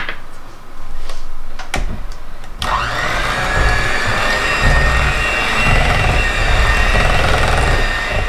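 Electric hand mixer switched on about two and a half seconds in, its whine rising briefly as the motor spins up, then running steadily as the beaters mix eggs into cheesecake batter in a bowl. A few knocks come before it starts.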